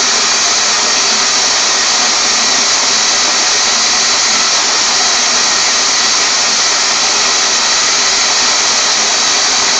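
Sunbeam Cafe Series EM480 electric coffee grinder running steadily as it grinds coffee beans.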